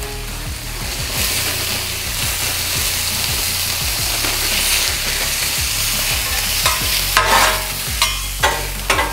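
Sliced mushrooms, peppers and onions sizzling steadily in oil on a very hot flat-top griddle, the hiss swelling about a second in as the mushrooms go down. Near the end, metal spatulas scrape and clack on the griddle top as the vegetables are tossed.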